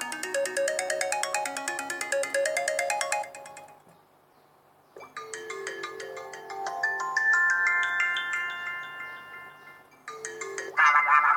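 iPhone ringtones played one after another. A fast, repeating run of bright notes fades out about three and a half seconds in, then after a short gap a slower tone of held notes builds upward and fades. Near the end another tone starts.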